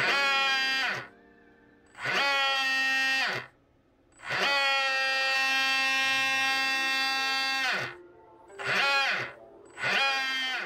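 Brushless motor of an RC boat run out of the water on a 2S battery, spinning its propeller in air in five throttle blips. Each blip is a high whine that rises as the motor spins up, holds, and falls away as it winds down; the third is held for about three and a half seconds.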